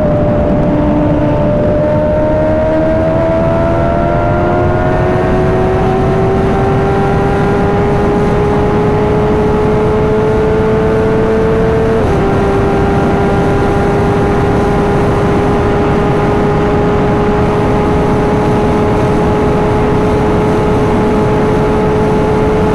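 Suzuki GSX-R sportbike ridden flat out: the inline-four's pitch climbs slowly under full throttle, drops a step with an upshift about halfway through, then holds steady. Loud, constant wind rush on the microphone throughout.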